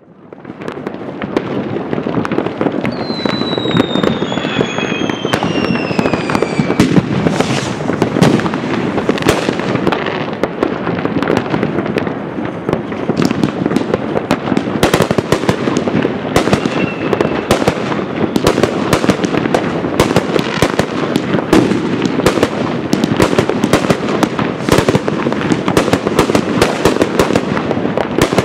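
A fireworks display: a dense, continuous din of crackling and many bangs that fades in at the start, with several high falling whistles a few seconds in.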